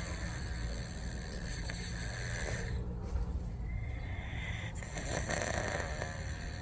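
Domestic cat snoring loudly in its sleep: long, noisy breaths of a couple of seconds each, with short pauses between them.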